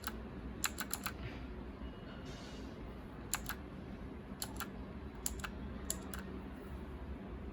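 Sharp clicks of blue clicky switches on a Cosmic Byte Firefly mechanical keyboard, keys pressed one or two at a time to step through its lighting modes. The clicks come in scattered pairs, with a pause of about two seconds after the first second.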